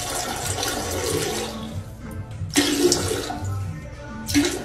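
Toilet flushing: water rushes loudly and eases off about two seconds in, followed by two short sharp noises.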